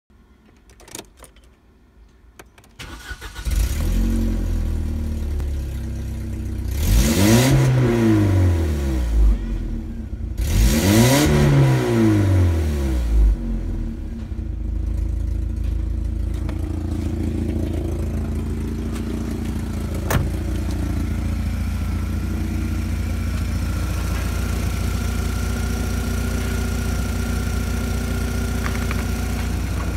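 Opel Omega B's 2.0-litre X20SE four-cylinder petrol engine starting after a few faint clicks, catching about three seconds in. It is revved twice, each time rising and falling, then settles to a steady idle at about 1000 rpm.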